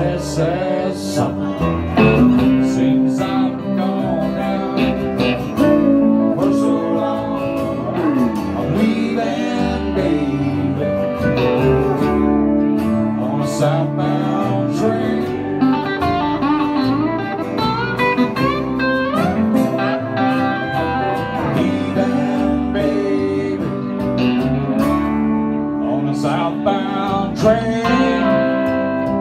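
Live band playing a blues-country rock song on electric and acoustic guitars, with bending, gliding electric guitar lines over the strummed rhythm.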